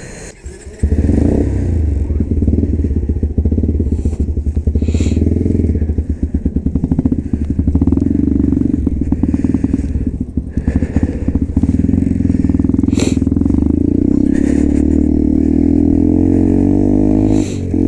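Motrac M5 minibike's small single-cylinder four-stroke engine running under way, heard on the rider's camera. It is quieter for the first moment, then steady and loud, with its pitch rising and falling a little as the throttle changes.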